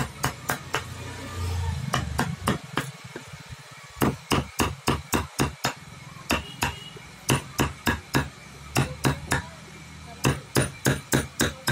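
Hammer blows in runs of several quick strikes, about four a second, with short pauses between the runs.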